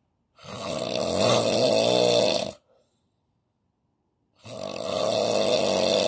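A sleeping man snoring heavily through his open mouth: two long snores of about two seconds each, the first starting about half a second in and the second about four and a half seconds in, with silence between them.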